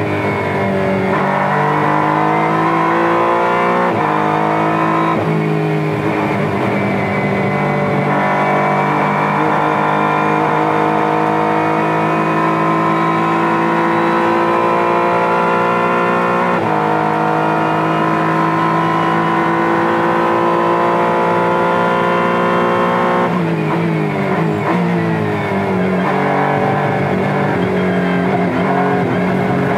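Honda NSX GT3's twin-turbo V6 heard from inside the cockpit at full racing pace, revving up through the gears with sudden drops in pitch at each upshift. From about 23 seconds in comes a quick series of downshifts with rev blips as the car brakes down to second gear.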